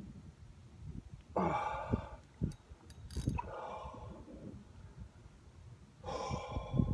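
Spinning reel ratcheting in three short bursts, about one and a half seconds in, around three seconds and near the end, as a hooked crevalle jack pulls on the line. Low knocks from handling sound underneath.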